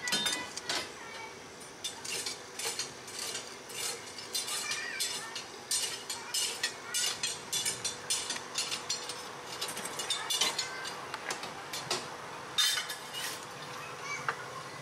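Steel fire iron scraping and clinking against coal and firebars in the firebox of a miniature coal-fired steam locomotive as the fire is raked across the grate. The knocks and scrapes come irregularly, a few a second.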